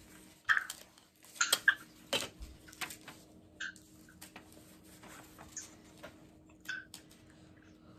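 Cardboard and tape being handled on a tabletop: scattered light rustles, taps and clicks, loudest and most frequent in the first three seconds, then sparser.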